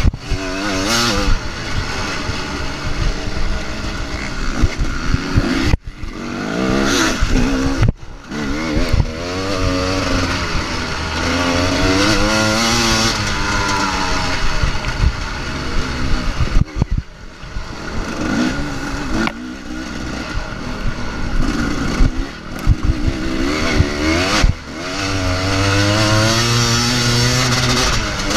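Motocross bike engine heard from on board, revving hard and easing off again and again, its pitch climbing and falling, with several sudden short drops where the throttle is shut.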